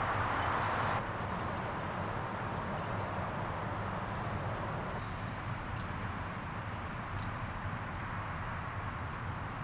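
Dry leaf litter rustling for about the first second, then stopping abruptly, followed by a steady quiet outdoor background with a few short, high chirps spread through the rest.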